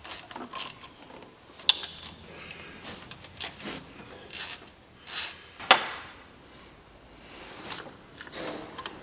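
Hand tools working on engine parts: intermittent ratchet and scraping handling noises, with two sharp clicks, one under two seconds in and a louder one a little before six seconds.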